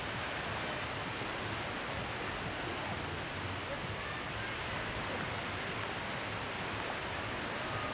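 Steady wash of gentle surf breaking on a sandy beach, with a faint murmur of distant voices.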